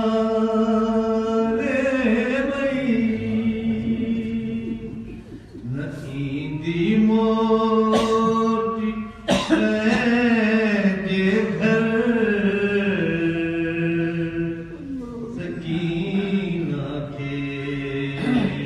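A man chanting a Sindhi salam, a Shia devotional elegy, in long drawn-out held notes that step up and down in pitch.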